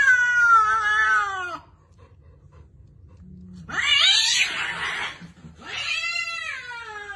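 A domestic cat yowling: a long yowl falling in pitch at the start, a harsher, noisier screech about four seconds in, and another long falling yowl near the end.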